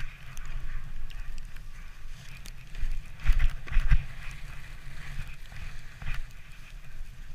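A sledge sliding fast over packed snow, with a steady low rumble and a few sharp bumps and jolts, the loudest about three and four seconds in.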